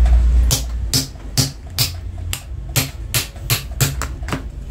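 Background music with a steady drum beat, about two to three beats a second.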